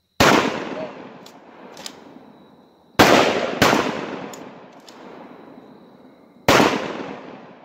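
Four 5.56 mm shots from an AR-15 rifle, the second and third about half a second apart, each echoing and dying away over a couple of seconds. The rifle is cycling fine on a 60-round magazine.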